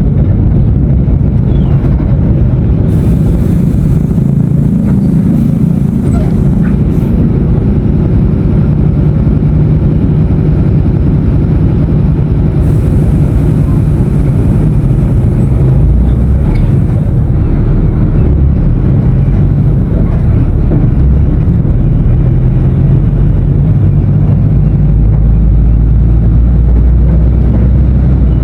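Diesel engine of a Mercedes-Benz OF-1519 BlueTec 5 bus running steadily with a loud, low drone, its pitch shifting slightly a few times.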